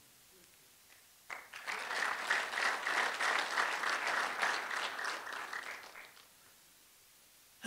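Audience applauding. It starts about a second in and fades out about six seconds in.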